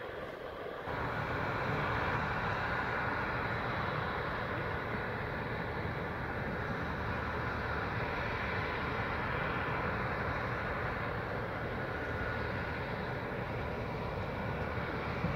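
Dredger's engine running steadily, a continuous drone with a faint steady whine, getting louder about a second in.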